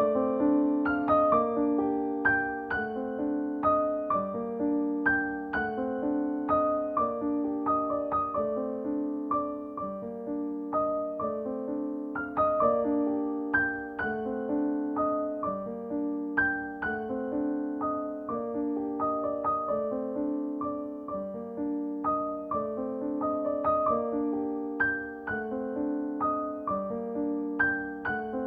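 Solo piano music: a gentle, steady pattern of struck notes and chords over a repeating bass.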